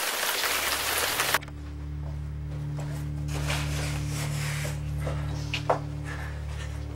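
A loud steady hiss cuts off abruptly just over a second in. It gives way to a quieter low steady hum with a few faint clicks and knocks.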